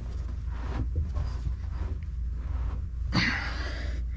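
Hand work on an AMF 82-30 pinsetter's pit front roller and its bearing: a few light knocks and a brief scraping rasp about three seconds in, over a steady low hum.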